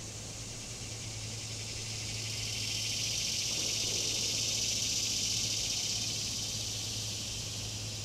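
A cicada's high buzzing drone that swells up over a few seconds to a peak near the middle, then slowly fades away.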